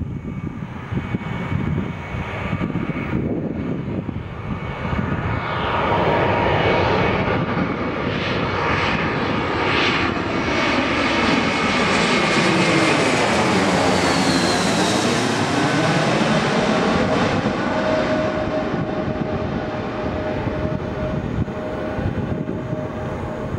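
Airbus A321-200 airliner on final approach with gear down, flying low directly overhead. The jet noise grows as it comes over, is loudest about halfway through, and eases as it moves away. A sweeping, whooshing quality and a high whine that falls in pitch come as it passes straight above.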